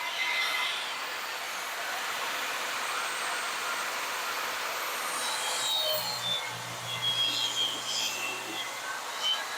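Skil table saw running and ripping a thin strip off a scrap board, fed through with a push block: a steady whirring of blade and wood, with a lower hum joining for a couple of seconds past the middle.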